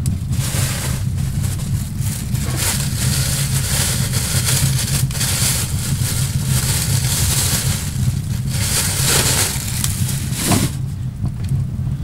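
Snowstorm wind blowing around a log cabin: a steady low rumble under a hiss that swells and fades in gusts.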